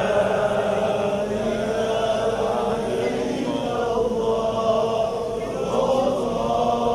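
Islamic prayer chanting in long, drawn-out phrases that slowly rise and fall in pitch.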